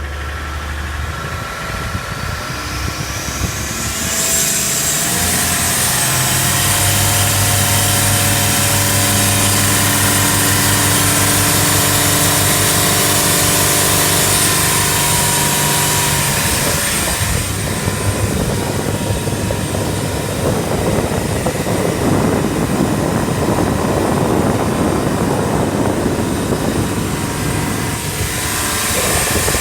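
Boat's 4.2-litre turbo-diesel accelerating hard, a rising whine coming in over the first few seconds, then running steadily at high revs as the boat comes up onto the plane, its injection pump freshly repaired. From about halfway, a loud rush of wind and water largely covers the engine.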